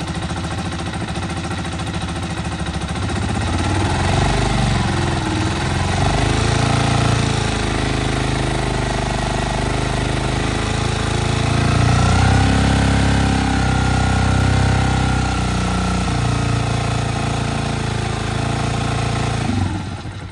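Honda TMX 125's single-cylinder four-stroke engine running with the throttle held open, the revs rising and falling a few times, then dropping sharply near the end to a quieter idle. The engine, long unused, dies unless it is given gas; the owner thinks it just needs warming up.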